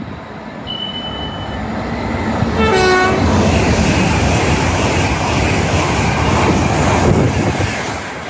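A passing train sounds a brief two-note horn, high then low, about three seconds in, then rushes past at speed with a loud, steady rush of wheel and air noise that fades near the end.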